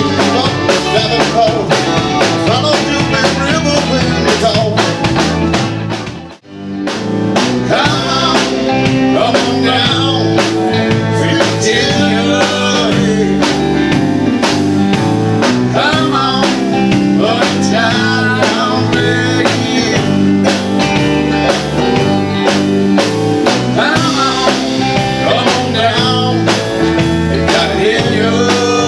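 Rock band playing: electric guitars and drum kit, with a man singing. The music drops out abruptly for under a second about six seconds in, then carries on.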